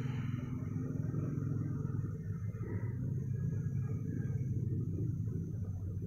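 Steady low background rumble picked up by the phone's microphone, with no distinct events.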